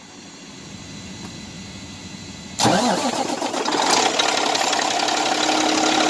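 Diesel truck engine starting: after a quiet stretch it fires abruptly about two and a half seconds in and keeps running at a steady idle.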